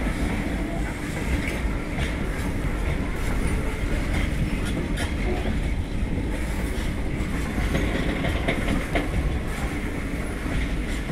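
Covered goods wagons of a cement-loaded freight train rolling past: a steady rumble of steel wheels on rail with irregular clicks as the wheels pass over rail joints.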